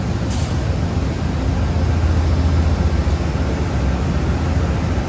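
Amtrak GE P42 diesel locomotive running steadily: a constant deep drone with a hiss over it.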